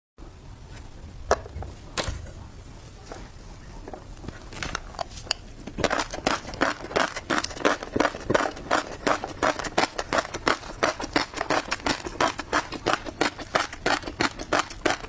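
Close-miked chewing of tobiko (flying fish roe). A few scattered clicks come first, then from about six seconds in a rapid run of crunchy pops, several a second, as the eggs burst between the teeth.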